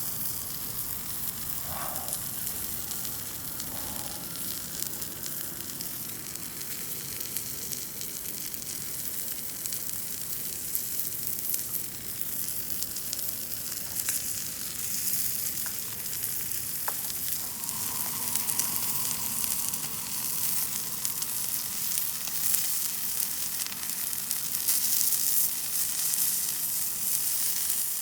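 Pork belly meat rolls frying, a steady sizzling hiss with a few scattered pops.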